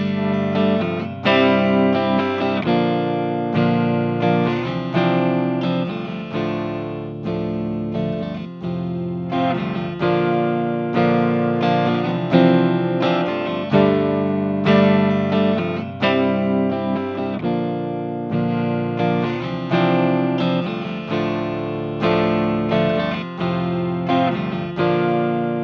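Electric guitar played through a FAME LEF-317 five-band equalizer pedal, demonstrating how the EQ shapes the tone. Chords and picked notes are struck about once a second and each is left to ring out.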